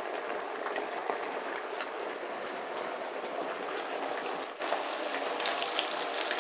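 Maddur vade patties deep-frying in hot oil: a steady sizzle with many small crackles, a little louder about four and a half seconds in.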